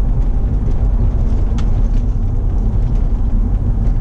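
Steady low rumble of a car being driven, road and engine noise heard inside the cabin, with one short tick about one and a half seconds in.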